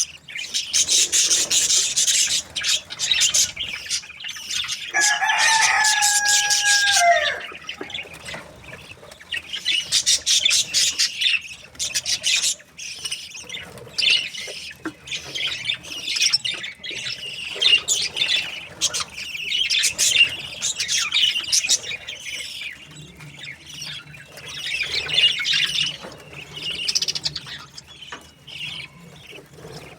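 A flock of budgerigars chattering and chirping in rapid high-pitched spells that come and go. About five seconds in, a longer, steady call is held for roughly two seconds.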